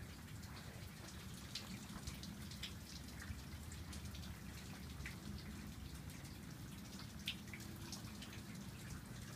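Steady rain falling, with individual raindrops and drips landing as scattered sharp ticks, a few of them louder now and then.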